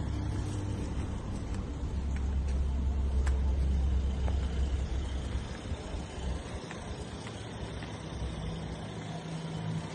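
2015 Mercedes-Benz GLK 350's 3.5-litre V6 idling, a steady low rumble that drops away about halfway through.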